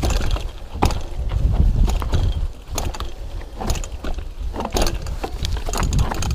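Mountain bike rolling fast down a rough dirt trail, its frame and chain rattling with sharp knocks over rocks and roots every second or so, over a steady low rumble of wind on the microphone.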